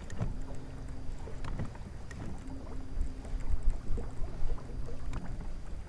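Electric trolling motor humming steadily on a bass boat, starting just after the opening and stopping about five seconds in, over low wind rumble on the microphone and water against the hull, with a few light clicks.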